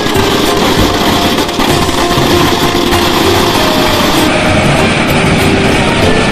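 Dense, continuous crackle and rattle of firecrackers bursting inside burning Dussehra effigies, a rapid barrage of small bangs that keeps up throughout.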